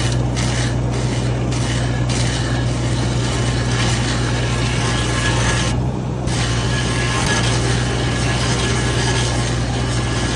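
ASV RC60 compact track loader engine running steadily under load while its hydraulic stump grinder auger bores into a tree stump, the cutter rasping and shredding the wood.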